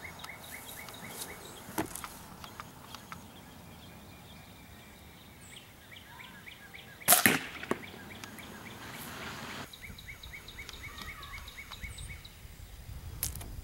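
A homemade slingshot rifle with 39-pound rubber bands fires once, about seven seconds in: a sharp snap of the released bands, followed by a lighter click. Faint repeated chirps of a bird sound in the background.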